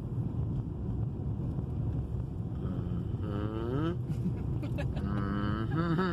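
Vehicle driving, with a steady low road-and-engine rumble. About three seconds in, a long drawn-out call slides down in pitch, and a few shorter calls follow near the end.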